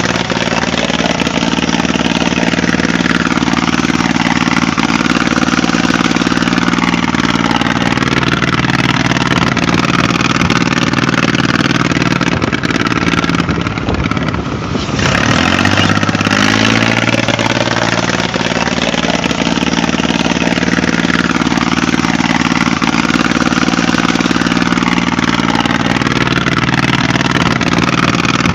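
Engine running steadily at idle, its level dipping briefly about halfway through.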